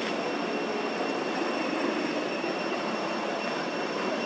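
Steady outdoor background noise with a faint, constant high-pitched whine over it; no distinct event stands out.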